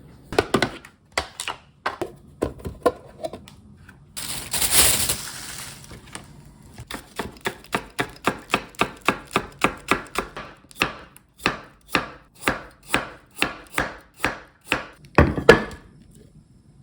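Knife chopping food on a cutting board: a few scattered strokes, then a steady run of about three chops a second, ending with a couple of heavier strokes. A brief rushing noise comes about four seconds in.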